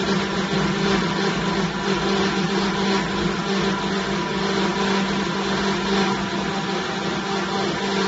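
Vertical hydraulic baler's electric motor and hydraulic pump running with a steady hum as the pressing plate rises on its return stroke.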